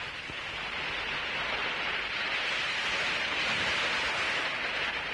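Steady rushing noise of wind and sea surf on an old film soundtrack, swelling slightly in the middle.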